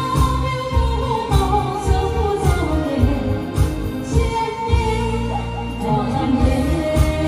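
A woman singing over loud amplified backing music with a steady thumping bass beat.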